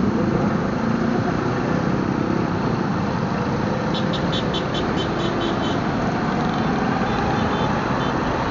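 Motorcycle riding in traffic: steady engine and road noise. About four seconds in comes a quick run of short high-pitched beeps, about four or five a second, with fainter ones following.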